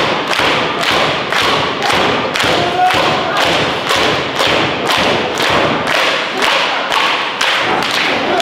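Audience clapping in unison, a steady beat of about two claps a second, to rally the wrestlers.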